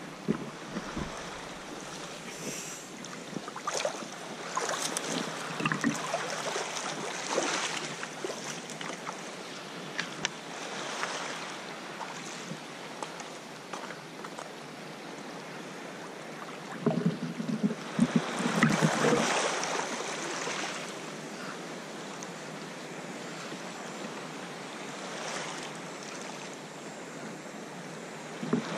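Sea water lapping around a paddled sea kayak, with splashes from the paddle strokes and small waves washing over shoreline rocks; a louder stretch of splashing comes a little past halfway.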